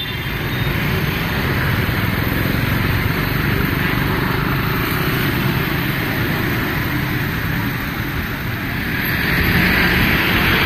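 Steady city street traffic noise, with wind on the microphone; it grows louder near the end.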